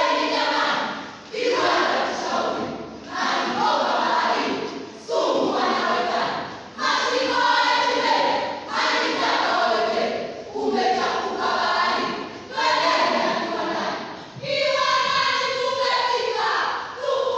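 A school choral verse group reciting in unison, many voices chanting in rhythmic phrases that start together about every two seconds and fade away.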